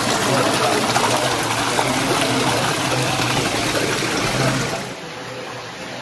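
Water running steadily, dropping off abruptly about five seconds in.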